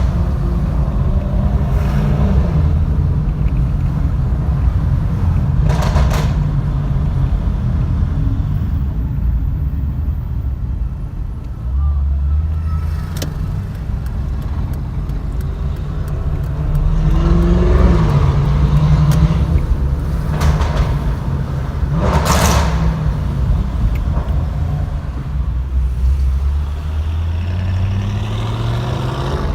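Audi RS6 C7's twin-turbo V8 through a Milltek exhaust with catless downpipes, running at low revs, its note rising as it pulls away partway through and again near the end. A few sharp cracks cut through the engine note.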